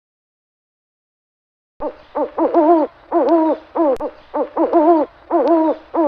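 Owl hooting: after a second or two of silence, a rapid series of about ten hoots in quick succession, each bending in pitch.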